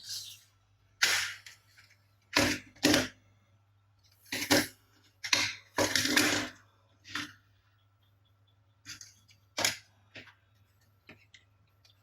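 Plastic toy army vehicles being handled and knocked about, making about a dozen short, irregular knocks and rattles with gaps between them.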